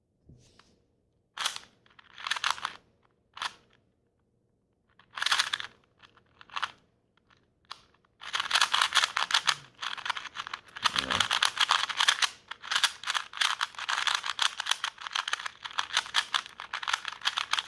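Plastic speed cube being turned by hand: a few scattered clicks and rattles at first, then from about eight seconds in a fast, continuous clicking clatter of rapid turns.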